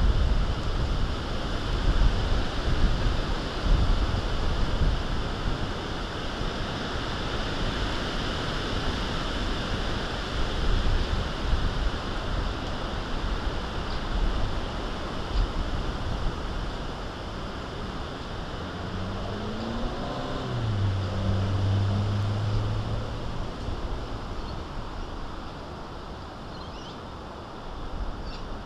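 Gusty wind buffeting the microphone: a steady rush with stronger gusts in the first few seconds. About twenty seconds in, a low hum rises in pitch and holds steady for a few seconds.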